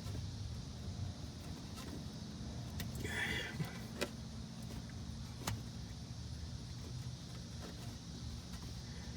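Engine oil draining from a 2001 BMW X5's sump into a drain pan, a steady low pour. About three seconds in there is a brief rustle, followed by two sharp clicks.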